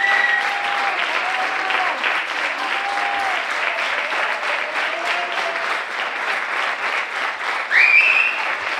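Audience applause, steady and dense, with voices calling out over it. A loud shrill high note rises above the clapping near the end.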